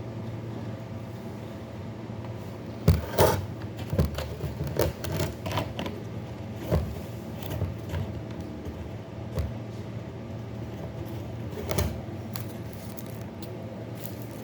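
Irregular clicks and knocks of small objects being handled, the loudest about three seconds in and again near the end, over a steady low hum.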